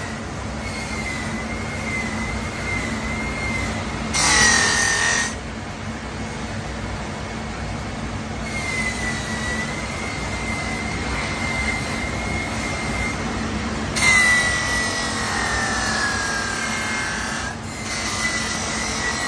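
Bench polishing machine's green wheel spinning with a steady hum and a high whine while a Kawasaki motorcycle muffler is worked against it. The rubbing grows louder twice, briefly about four seconds in and for a longer stretch later on, and the whine sags in pitch under the load.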